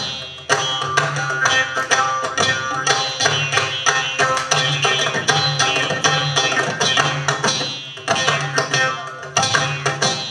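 Mridangam, the two-headed Carnatic barrel drum, played in a fast, unbroken run of strokes: the tuned right head rings out while the bass head adds low strokes in a repeating pattern.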